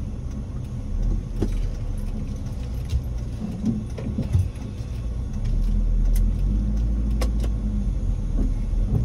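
Inside a moving car's cabin: the steady rumble of engine and road noise, growing louder about halfway through, with a few light clicks and rattles.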